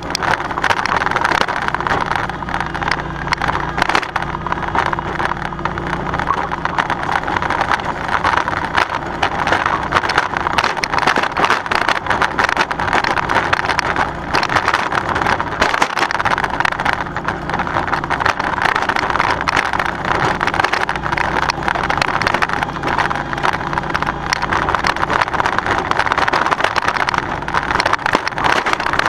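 Lawn tractor engine running steadily while a towed spike aerator rattles and clatters without a break as its tines roll through the turf, rough and bumpy over the ground.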